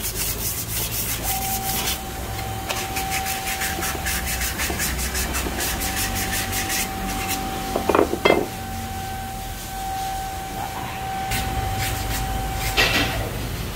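Brake drum being hand-sanded with 120-grit sandpaper: quick, rhythmic rasping strokes for the first several seconds, then two sharp knocks about eight seconds in.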